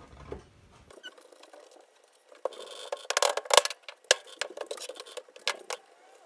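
Handling noise from a fibreboard-backed vinyl car door card being slid and turned over on a wooden workbench: a run of scrapes, taps and clicks, heaviest in the second half.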